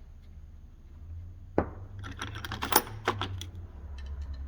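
Metal brake parts and hand tools being handled. A sharp knock comes about a second and a half in, then a quick run of light metallic clicks and clinks lasting about a second and a half.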